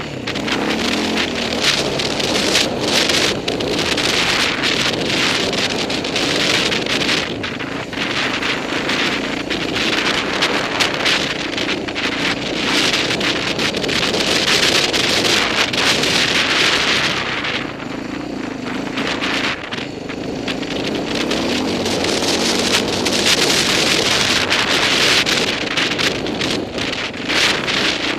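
Dirt bike engine running at varying throttle while riding over sand and rocks, half buried under heavy wind buffeting on the camera microphone. About 18 seconds in the rushing noise eases for a couple of seconds, then builds again.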